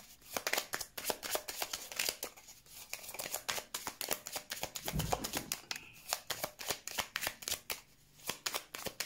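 A deck of large oracle cards shuffled by hand: a rapid run of card clicks and slaps, easing off briefly a couple of times.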